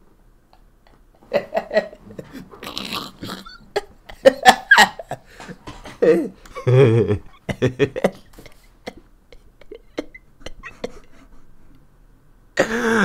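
A man laughing hard in irregular bursts, with breaths between them.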